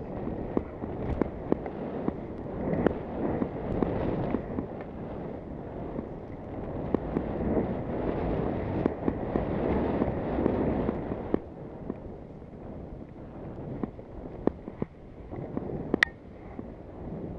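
Skis hissing and scraping over snow with wind buffeting a helmet-mounted camera's microphone, peppered with sharp clicks and knocks. The rush is heavier for the first two-thirds, then eases off, with a few louder clicks near the end.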